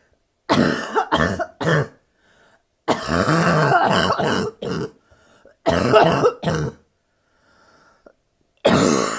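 Woman's harsh, barking cough from bronchitis, coming in fits: three quick coughs about half a second in, a longer run of about two seconds, then another bout and a last one near the end.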